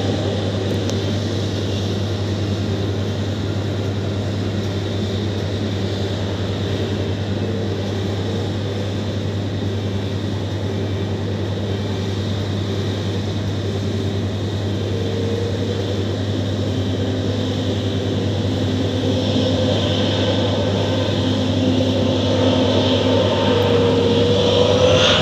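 Jet engines of a taxiing Boeing 737 airliner running steadily, a constant whine and rumble. Over the last few seconds the engine sound gets louder and its tone rises.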